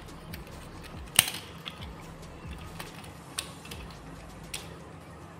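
Plastic parts of a Studio Series Gamer Edition Optimus Prime action figure being moved and pegged during its transformation to truck mode: scattered small clicks and taps, the sharpest about a second in.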